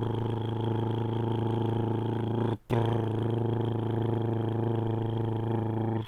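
Snoring sound effect: two long, steady droning snores, one after the other, with a brief break between them about two and a half seconds in.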